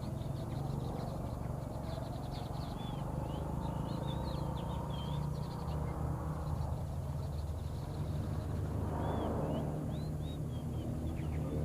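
Small birds chirping and twittering over and over in short, high, quick notes, over a steady low hum.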